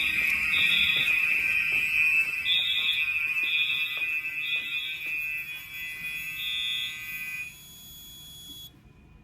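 Fire alarm horn/strobes sounding together: one horn gives a steady continuous tone while another pulses in groups of three, the temporal code-3 evacuation pattern. Everything cuts off about seven and a half seconds in, and a fainter high tone stops a second later.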